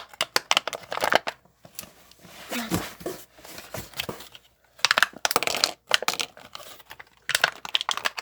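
Packaging of a toy minifigure set being handled and torn open, in spells of rapid crackling with small clicks, loudest about five seconds in and near the end.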